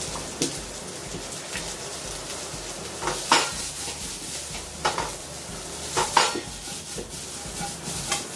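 Vegetables sizzling in oil in a hot stainless-steel kadhai (wok) as they are tossed and stir-fried over a gas flame. A handful of sharp metal clanks from the pan come through over the steady sizzle, the loudest about three seconds in.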